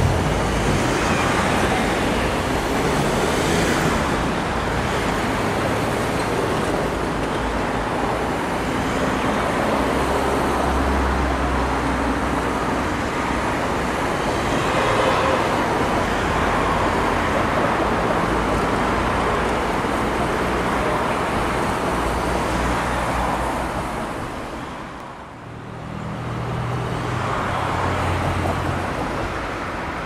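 Steady road traffic noise from passing vehicles, with shifting low engine hums; it dips briefly near the end and then swells again as another vehicle passes.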